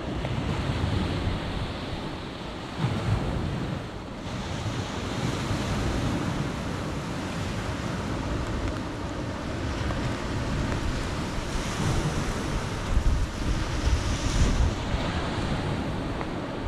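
Small waves washing onto a sandy beach, with wind buffeting the microphone in gusts, strongest a few seconds in and again toward the end.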